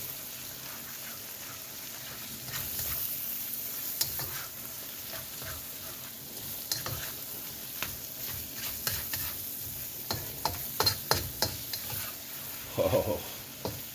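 Shrimp and egg stir-fry sizzling in a wok while a spatula stirs and scrapes through it, tapping against the pan. The taps come thickest about ten to twelve seconds in.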